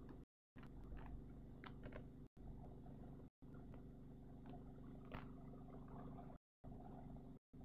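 Near silence: a faint steady low hum that cuts out completely for a moment several times.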